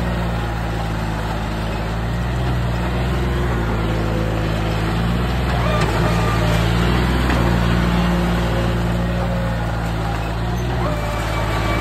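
John Deere 5310 tractor's three-cylinder diesel engine running steadily under load as it hauls a heavily loaded trolley through deep mud, its note rising and easing slightly.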